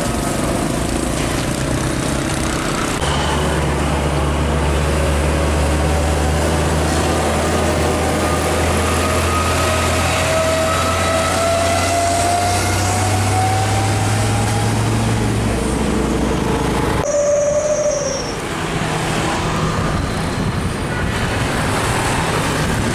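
Heavy diesel trucks passing close by on a highway: a deep engine drone and tyre noise, with a whine that slowly rises in pitch through the middle. About three-quarters of the way through the sound changes abruptly to other passing traffic.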